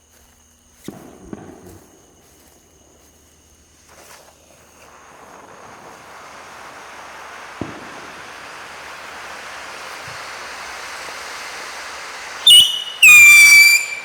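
Firework fountain burning: its gerbs spray with a hiss that builds steadily louder, then its whistle drivers cut in with loud shrieking whistles near the end, a short one and then a longer one, each sliding slightly down in pitch.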